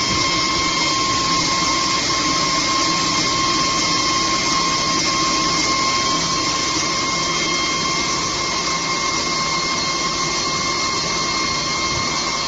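Diamond wire saw cutting through a stone block under coolant water spray: a steady hiss of the running wire with an even, high whine.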